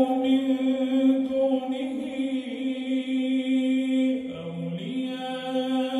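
A man's voice reciting the Quran in melodic chant into a microphone. He holds one long note for about four seconds, dips briefly to a lower note, then rises to another held note.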